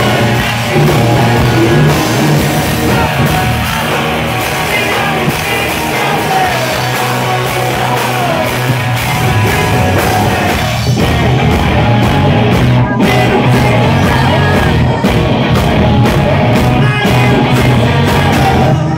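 Rock band playing live at full volume: electric guitar, bass and drums under a male lead vocal.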